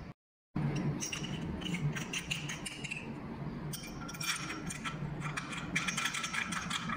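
Small metal parts clinking and scraping as a metal sleeve is worked onto a brass shower valve stem: many quick light clicks and rattles, starting just after a brief break in the sound.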